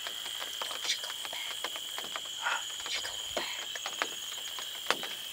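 Evening insect chorus: a steady high-pitched trill that holds throughout, with scattered faint clicks and one sharper click near the end.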